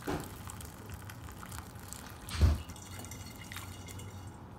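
Sugar syrup poured from a saucepan through a funnel into a glass gallon jug, trickling and splashing as the jug fills. A single dull knock sounds about two and a half seconds in.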